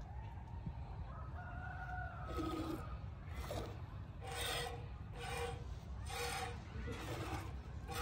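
Goat being hand-milked into a metal pail: squirts of milk hiss into the pail about once a second, growing stronger partway through.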